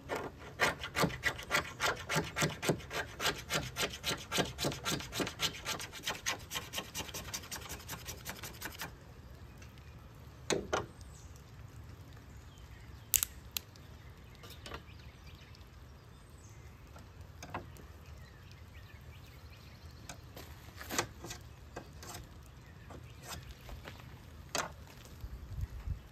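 Knife scraping a piece of fatwood in quick, even strokes, about three or four a second, making fine scrapings for fire tinder. The scraping stops about nine seconds in, and a few scattered taps follow.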